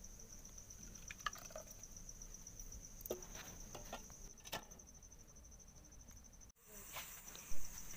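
Rice batter being poured and scraped from a bowl into a pressure cooker, faint, with a few light clinks. Crickets chirr steadily throughout in a high, pulsing trill.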